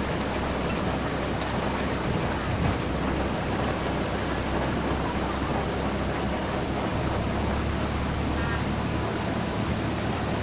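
A passenger boat's motor running steadily under way, with a constant rush of water and wind noise.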